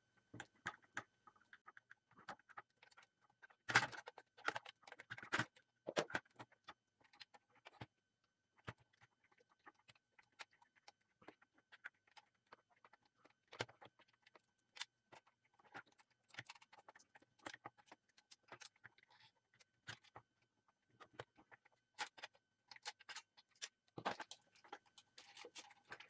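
Irregular light clicks, taps and rattles of a Zebra GK420d label printer's plastic frame and parts being handled while its cable is disconnected and wires are freed. The clicks are louder in a cluster about four seconds in and again near the end.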